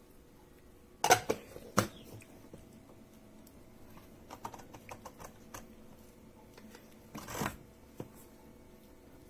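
Sboly conical burr coffee grinder being handled, with no motor running: two sharp clacks about a second in, a run of light clicks, and a short clattering rustle near the end.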